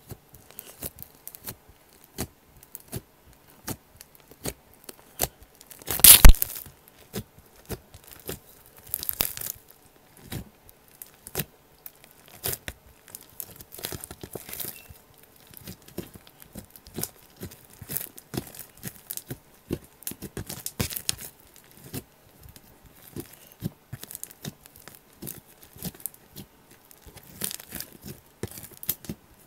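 Slime being squeezed and pulled with all the fingers of a hand, giving irregular sticky clicks and pops, with one much louder pop about six seconds in.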